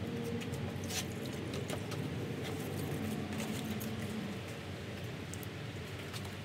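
Light plastic clicks and rattles from handling a coolant jug and the coolant reservoir's cap and funnel, scattered over a steady low background hum.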